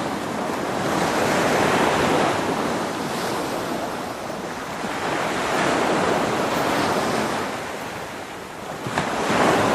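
Sea surf: waves breaking and washing ashore in slow surges that swell and ease every few seconds, with a louder wave breaking near the end.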